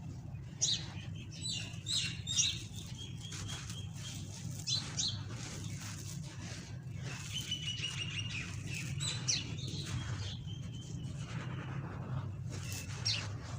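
Small birds chirping, with short rapid trills of repeated notes, over a steady low hum.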